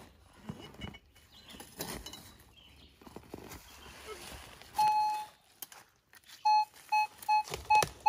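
Minelab Equinox 800 metal detector signalling a target: one steady tone about five seconds in, then a quick run of short, loud beeps as the coil is swept back and forth over the freshly dug hole, where the metal target lies shallow. Before that, faint scraping and knocks of a shovel digging into leafy soil.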